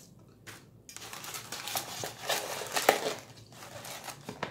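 Takeout packaging being handled: paper food wrapper crinkling and a foam clamshell container rustling as it is closed, in a dense run of crackles lasting a couple of seconds.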